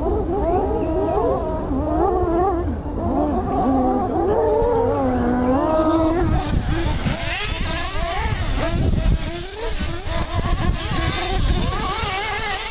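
Several nitro RC off-road cars' small two-stroke glow engines racing together, their pitches rising and falling as they throttle on and off around the track. From about six seconds in, a higher, hissier whine comes to the front.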